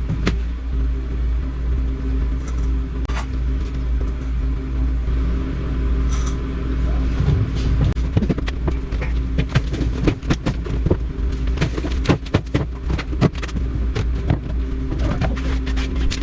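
Engine running steadily with an even hum, its pitch shifting a little about halfway through. Over it come sharp knocks and scrapes of tools, occasional at first and then coming thick and fast in the second half.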